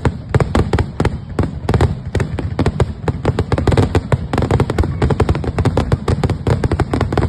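Fireworks bursting in rapid succession, many sharp bangs a second over a continuous low rumble.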